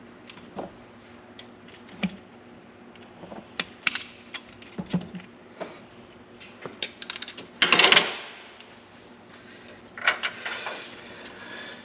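Pliers crushing and prying at the old plastic end of a Jeep AW4 kickdown cable: scattered clicks and small snaps, with a louder crunch about eight seconds in.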